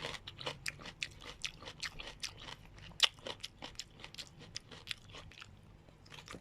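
Close-up crunching of crisp food being chewed, several bites a second, thinning out and stopping about five seconds in.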